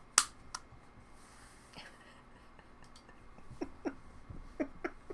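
Trading cards and packs being handled: a sharp click just after the start, then a run of light taps and rubs in the second half.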